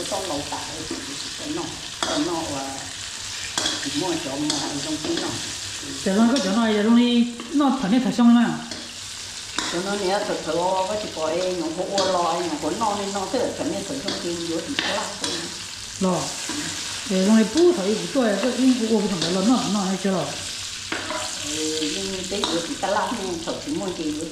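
Food frying and sizzling in a pan while it is stirred.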